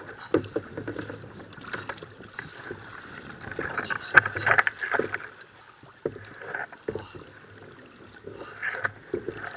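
Choppy sea water slapping and splashing against a plastic kayak hull, with irregular knocks against the boat and a busier burst of splashing about halfway through.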